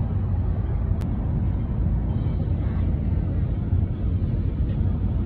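Steady low rumble of road and engine noise inside a car's cabin while it drives along a highway.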